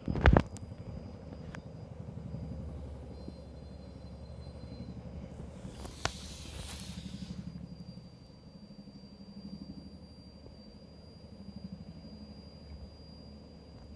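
Boeing CH-47 Chinook tandem-rotor helicopter passing at a distance: a low, rapid beating of its rotor blades that rises and falls in waves. A loud thump right at the start and a brief hiss about six seconds in.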